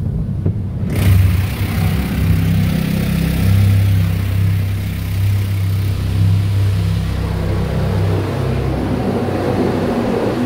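Sonny's tunnel car wash heard from inside the car's cabin: a steady low rumble of the wash equipment, then about a second in a sudden loud hiss of water spraying onto the car, which keeps going.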